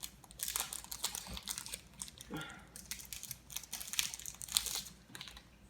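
Plastic packaging crinkling and rustling in irregular crackles as the Fire TV Stick is pulled out of it.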